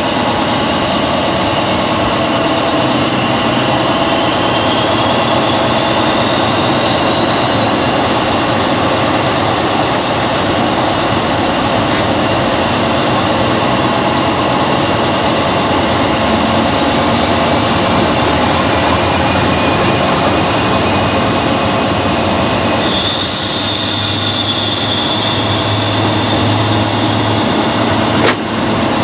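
Class 40 diesel-electric locomotive 40106 heard from inside the cab under power, its English Electric 16SVT V16 engine running with a high turbocharger whistle that rises steadily in pitch. About three-quarters of the way through, a higher ringing tone and a low hum join in, and there is a single sharp click near the end.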